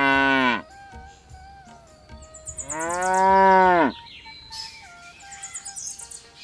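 Buffalo mooing: a call that ends about half a second in, then a second, longer and louder moo whose pitch drops as it fades out. Faint high chirps follow near the end.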